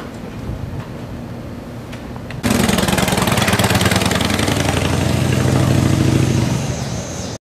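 Outdoor background noise, then, after a sudden cut about two and a half seconds in, a loud engine running steadily with a low hum. It stops abruptly near the end.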